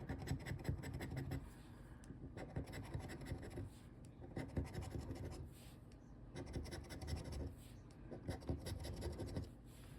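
Scraping the latex coating off a paper scratch-off lottery ticket in quick short strokes, in runs with brief pauses.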